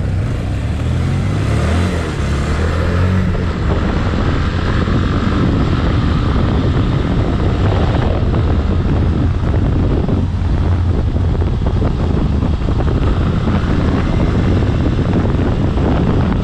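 A motor vehicle under way: steady engine and road noise, with heavy wind rumble on the microphone.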